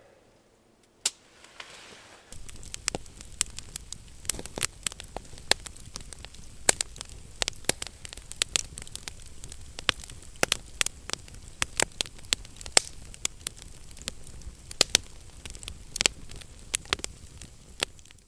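Wood campfire of split logs crackling, with many sharp, irregular pops over a steady hiss, starting about two seconds in after a near-quiet moment.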